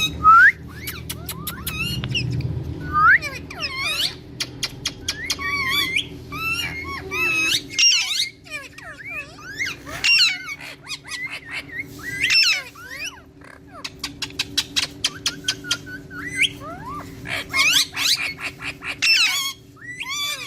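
Indian ringneck parakeets calling: repeated sharp rising and falling squawks and whistles mixed with rapid chattering trills.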